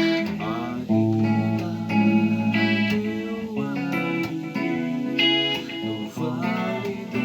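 Ibanez AS53 semi-hollow electric guitar played through a clean tone with a little delay and a touch of reverb: ringing chords and single notes, a few of them wavering in pitch.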